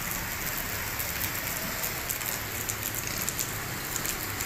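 Steady rain falling, a dense even hiss with many small, sharp drop hits scattered through it.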